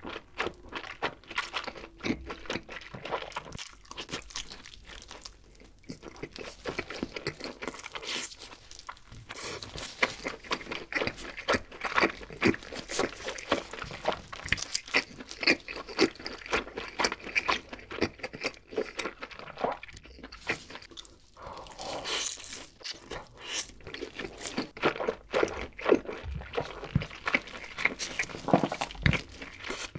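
Close-miked eating sounds: biting and chewing a slice of cheesy thick-crust pizza, with many irregular crunches of the crust.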